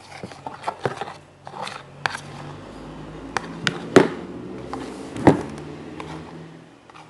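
A teaspoon stirring a sticky mix of white glue, shaving foam and borax solution in a cup, scraping and tapping against the sides, with two sharper knocks about four and five seconds in. This is the stirring that starts the slime forming.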